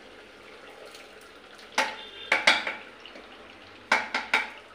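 Stainless-steel mixer-grinder jar knocked against a pressure cooker to empty out ground masala paste: a few sharp metallic clinks, about three near the middle and three more near the end, one ringing briefly. Under them runs a faint steady sizzle of mutton frying in the cooker.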